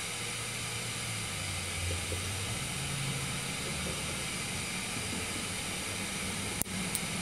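Two sharp clicks near the end from the piezo igniter of a small folding canister stove as its button is pressed to throw a spark. They sound over a steady low background rumble.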